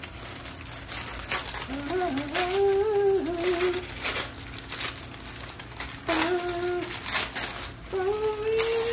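Printed transfer sheets and wrapping paper crinkling and rustling as they are handled and packed into a cardboard box. Over it, a man hums short phrases of a tune, three times.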